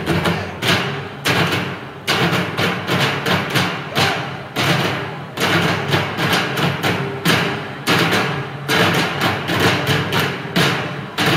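Percussion ensemble drumming with sticks on barrels in a fast, driving rhythm of sharp hits, over a steady low sustained tone.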